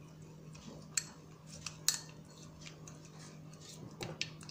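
Plastic spoon stirring a thick ketchup and paprika mixture in a ceramic bowl, scraping and clicking against the bowl's sides; the sharpest clicks come about one and two seconds in, with a few lighter ones near the end.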